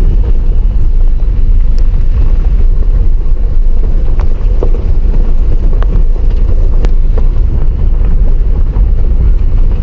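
A car rolling slowly over a gravel road, heard inside the cabin: a steady low rumble from the tyres with a few light clicks scattered through it.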